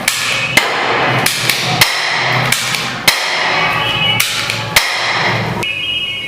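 Toy Uzi submachine gun being fired: about eight sharp, irregularly spaced shots over a continuous noisy whirr, stopping about five and a half seconds in, after which a faint high tone lingers.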